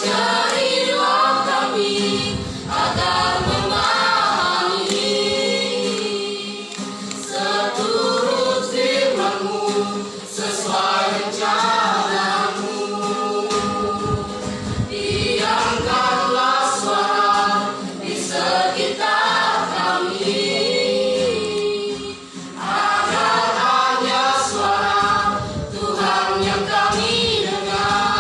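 Choir singing in phrases a few seconds long, with short breaks between them, over a steady low held tone.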